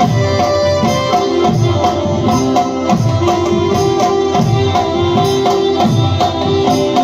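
Loud Punjabi folk music with no singing: a drum beats deep strokes that fall in pitch about once a second under a held melody line.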